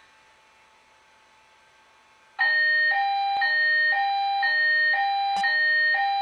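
Fire alarm voice-evacuation speaker sounding a European-style hi-lo evacuation tone, two pitches alternating about every half second, starting after a couple of seconds of near silence. A sharp click cuts in about five seconds in.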